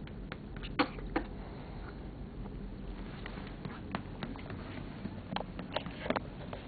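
Newborn baby hiccuping: short, sudden hics, two sharper ones close together about a second in, then a few fainter ones later.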